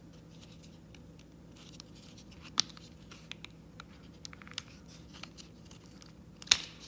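Small clicks and scraping from the parts of a backpack blower's throttle handle being handled and worked loose, with two sharper clicks, one about two and a half seconds in and one near the end.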